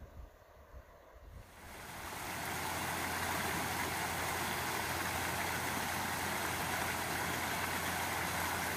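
Shallow stream running over rocks: a steady rush of water that fades in about a second and a half in and holds level.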